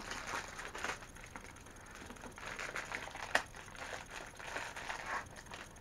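Blind-bag packaging rustling and crinkling as it is handled and opened, with one sharp click about three seconds in.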